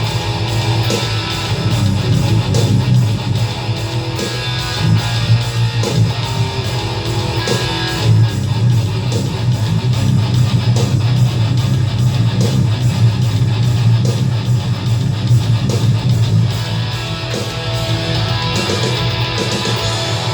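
Heavily distorted electric guitar, an ESP LTD EC-10 through a Boss ML-2 Metalcore pedal, playing a metal riff. Under it runs a programmed drum-machine metal beat with fast, even drum strikes.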